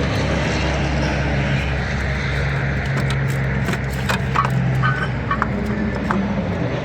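A steady engine drone in the background, fading about five seconds in, with scattered light metallic clicks and knocks of parts and tools being handled.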